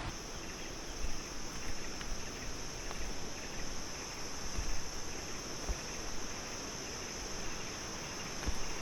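Insects droning in a steady, high-pitched chorus over a soft outdoor hiss.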